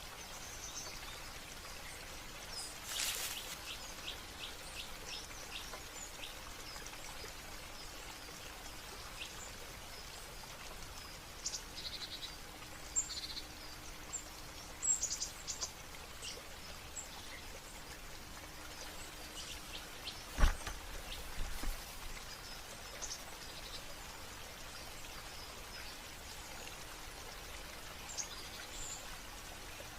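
Steady hiss of falling water with many short bird chirps scattered throughout, and a single sharp knock about twenty seconds in.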